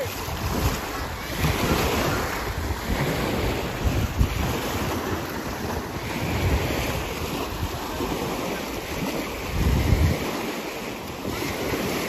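Small sea waves breaking and washing up a sandy shore, with wind buffeting the microphone in gusts, strongest about four and ten seconds in.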